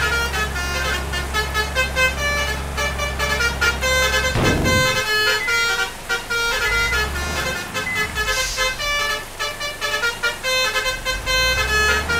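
Bus basuri "telolet" horn playing a fast melodic run of short pitched notes, over the low rumble of the bus running.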